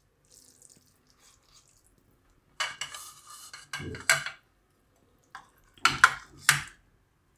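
Metal spoon scraping and scooping cooked paneer bhurji in a kadai, then two sharp clicks of the spoon against a white ceramic serving dish as it is served out.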